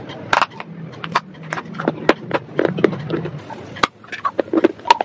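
Close-miked crunching of dry clay pottery being bitten and chewed: many sharp, irregular crackles and snaps.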